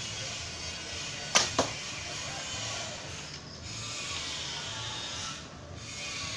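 A short fiberglass Turkish-style bow being shot: two sharp cracks about a fifth of a second apart, a second and a half in, as the string is released and snaps forward.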